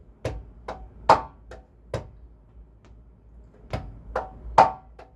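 Conga played by hand: the heel, fingertip and slap strokes of the bachata derecho pattern on the high drum. Two short runs of strokes with a pause between them, the slap standing out loudest in the middle of each run.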